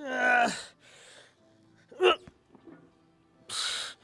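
A man's strained grunts and breaths while pushing through repetitions of lying hamstring curls: a long groan falling in pitch at the start, a short grunt about two seconds in, and a sharp breathy exhale near the end.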